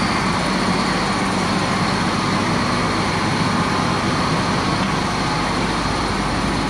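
Self-propelled crop sprayer's engine running steadily as the machine drives slowly out of a shop.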